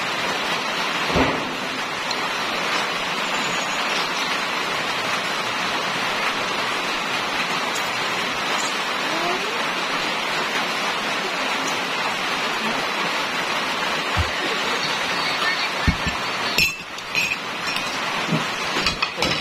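Steady rain on a corrugated metal roof, an even hiss. Near the end come a few clinks of a spoon in a ceramic mug.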